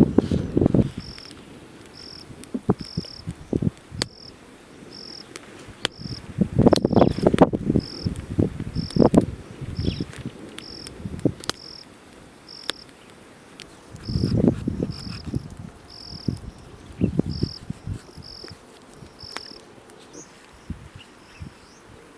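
An insect chirping, short high notes at one steady pitch about once a second, stopping shortly before the end. Clusters of low knocks and rustling come and go twice, louder than the chirps.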